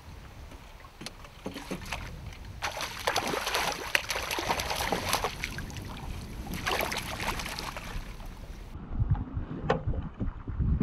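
Water splashing at the boat side as a hooked brown trout thrashes and is scooped into a landing net. It is busiest from about 3 s in, then gives way to duller, closer water lapping and dripping near the end.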